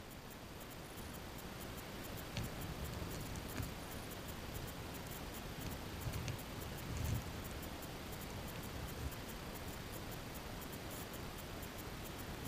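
River current heard underwater over a gravel streambed: a steady hiss with scattered small clicks and ticks, and a few soft low thumps in the first half.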